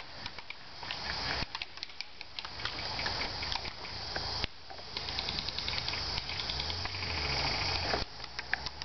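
Rustling handling noise and footsteps as the camera is carried across grass and dirt, with many scattered sharp clicks, some in quick runs.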